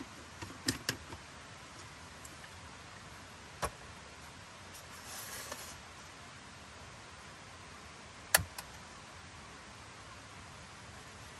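A few scattered small clicks and knocks over a quiet background hiss: a cluster about a second in, a single one near four seconds and the sharpest near eight seconds, with a brief soft rustle in between.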